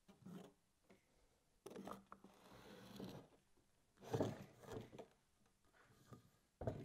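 Metal pump bearing housing being turned and set upright on a workbench: faint scraping and handling knocks, with louder knocks about four seconds in and a sharp knock near the end as it is set down.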